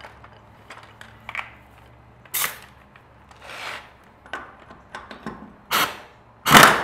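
Pneumatic impact wrench firing in short bursts to break loose and spin off a trailer wheel's lug nuts, the loudest burst near the end, with small clicks and knocks of the tool and nuts between.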